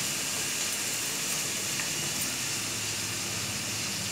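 Chopped onions and cashews sizzling steadily in hot oil in a wide pan.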